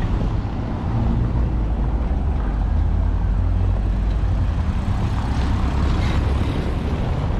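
A steady low rumble of city street noise, heaviest in the bass.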